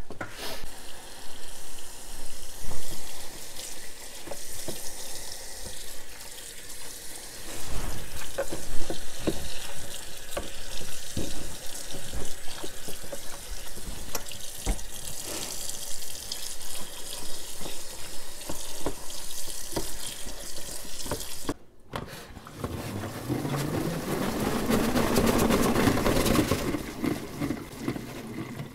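Water running from a kitchen faucet's pull-down sprayer onto salad greens in a salad spinner basket in a stainless steel sink, with occasional knocks as the bowl and leaves are handled. Near the end the lidded pump salad spinner is spun, a whir that rises in pitch as it speeds up.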